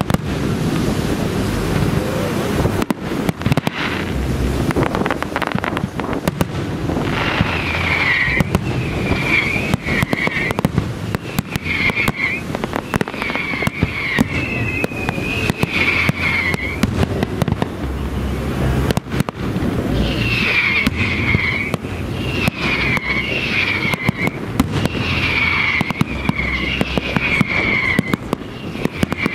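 A fireworks display with aerial shells going off in quick succession: sharp bangs over a continuous booming rumble. From about seven seconds in, short high wavering whistles keep coming back between the bursts.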